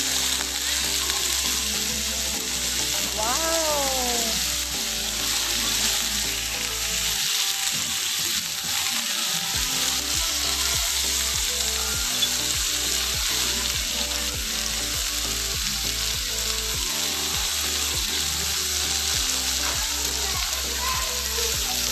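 Steak sizzling steadily on a very hot iron serving plate, still cooking as it is served.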